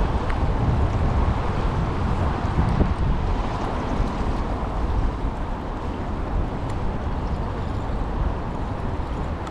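Wind buffeting the microphone, over a steady rush of canal water flowing down a concrete spillway.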